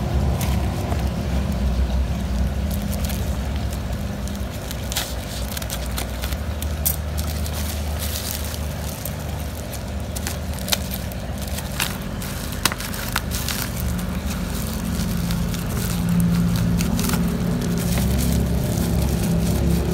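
Black plastic shipping bag crinkling and crackling as hands handle and open it, in scattered crinkles and clicks mostly in the first two-thirds, over a steady low rumble.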